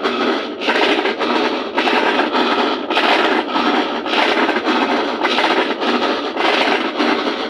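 Colormaq 12 kg top-loading washing machine agitating with a loud, rough grinding and scraping in repeated strokes. The noise comes from a worn drive mechanism, the gear, bearing and reducer that were later repaired.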